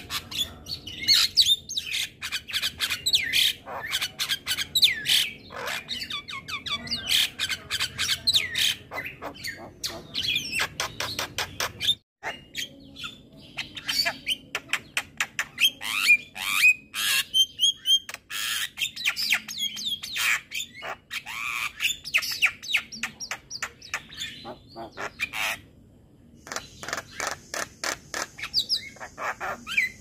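Javan myna singing: a fast, varied run of clicks, chatter, squawks and whistled notes, with a brief break about twelve seconds in.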